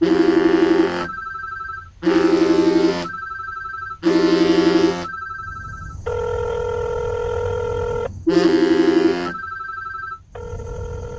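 Telephone ringtone: a loud warbling ring about a second long, repeating every two seconds, with a quieter pulsing beep between rings. A steady held tone breaks in for about two seconds in the middle and again near the end.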